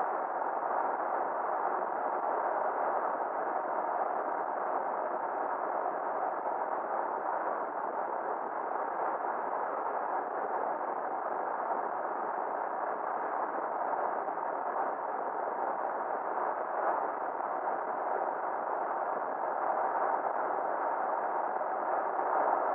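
Steady, muffled road and wind noise of a Ford F-350 pickup driving along at an even speed.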